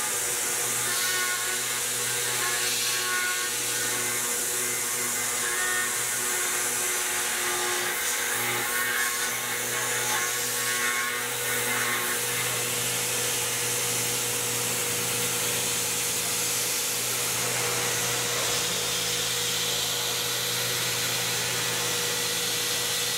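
CNC milling machine's spindle running as a carbide end mill cuts an aluminium bracket: a steady machining whine over a broad hiss.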